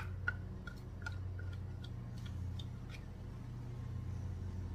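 A spatula clinking and scraping against the inside of a glass measuring cup as caramel sauce is scraped out: a quick run of light ringing taps, about three a second, that fade out about three seconds in. A steady low hum runs underneath.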